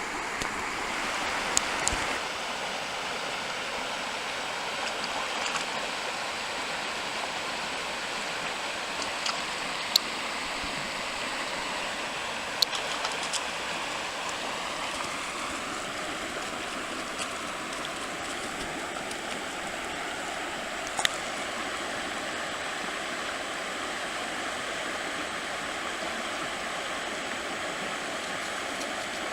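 Steady rush of flowing stream water, with a few sharp clicks scattered through it. A faint steady tone joins about halfway through.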